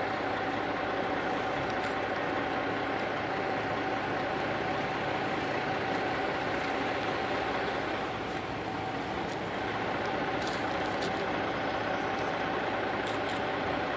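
Vehicle engine idling: a steady hum with a constant mid-pitched tone, and a few faint ticks in the second half.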